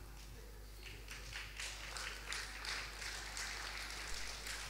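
Faint audience noise in a hall, with light, scattered claps.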